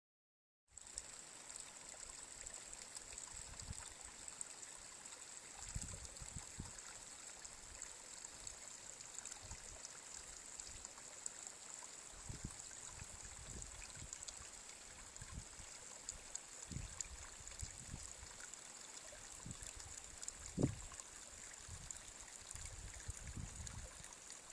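Small mountain brook trickling over stones, a steady faint hiss, with irregular low gusts of wind buffeting the microphone and a single knock near the end.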